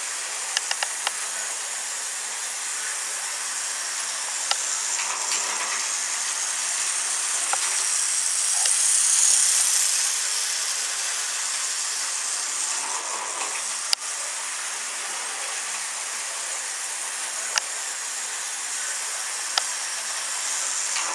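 Tyco Burlington Northern model diesel train running on the track: a steady high whirring hiss from the locomotive's electric motor and rolling wheels, growing louder as the train passes close about nine seconds in, with a few sharp clicks along the way.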